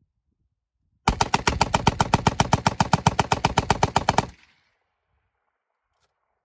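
Vickers belt-fed machine gun firing one sustained burst of about three seconds, a fast even stream of shots, roughly nine or ten a second, that starts about a second in and stops abruptly.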